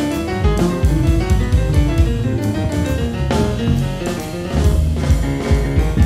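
Live jazz trio playing: piano, upright bass and drum kit with cymbals.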